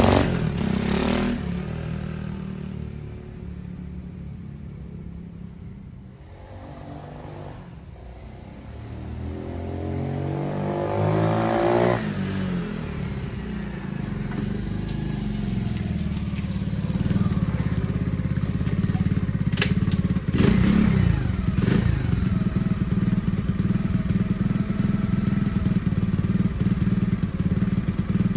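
Small single-cylinder four-stroke engine of a Honda CT70 minibike fitted with a Lifan 125 motor, on a test ride after carburetor jetting. It pulls away and fades with distance, revs up with rising pitch as it comes back about a third of the way in, then runs steadily close by. The rider judges that it reaches top end a little more easily but still needs some jetting adjustment.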